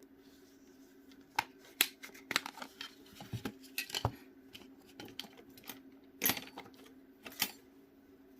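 Scattered plastic clicks and taps as a Jio Next phone is opened by hand, its back cover being prised off, with two louder snaps about six and seven seconds in.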